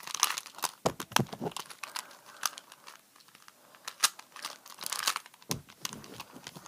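Rubik's cube being scrambled by hand: its plastic layers turning with quick, irregular clicks and clacks, pausing briefly about halfway through.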